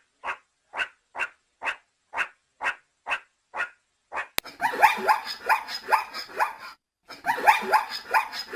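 Dog barking: a steady series of single barks, about two a second. About four seconds in, it changes to a rapid, overlapping run of yapping barks.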